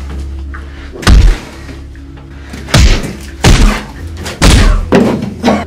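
Heavy punch thuds, about six in irregular succession as a man is beaten, over a low background music bed.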